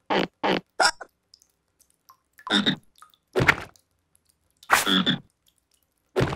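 A cartoon frog croaking: three quick short croaks, then four longer croaks spaced about a second apart.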